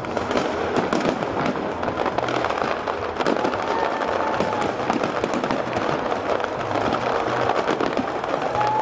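A large fireworks display: aerial shells bursting in a dense, continuous barrage, many sharp cracks over a steady crackle with no pause.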